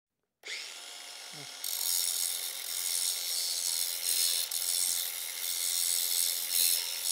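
Angle grinder spinning up about half a second in, then grinding the end of a threaded steel bolt from about a second and a half in, a loud harsh hiss. It is dressing off burrs on the cut end so the nut will thread on.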